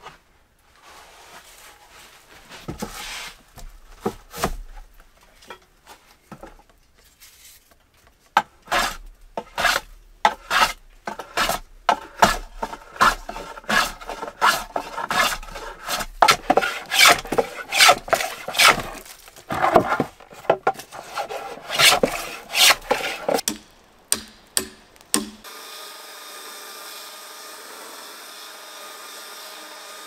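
Wooden board being shaved by hand with a bladed tool, curled shavings coming off: repeated scraping strokes along the wood, about one or two a second, after a few scattered scrapes at the start. Near the end it gives way to a steady engine drone of a chainsaw cutting a log.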